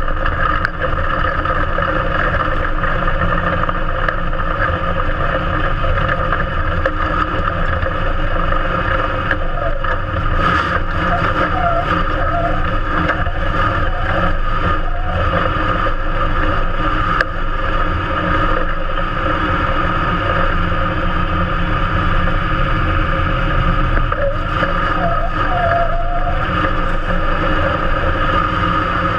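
IMCA Modified race car's V8 engine running steadily, heard from inside the open cockpit as the car drives slowly off the track into the pits. A brief knock sounds about ten seconds in.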